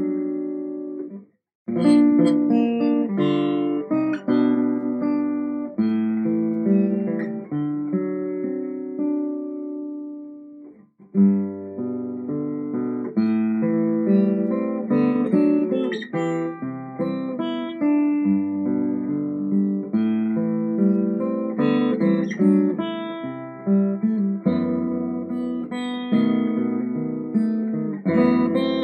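A 1907 Martin 00 acoustic guitar, with mahogany back and sides and a spruce top, being played in chords, strummed and picked. There is a brief break about a second and a half in, and a chord rings out and fades around ten seconds in before the playing picks up again.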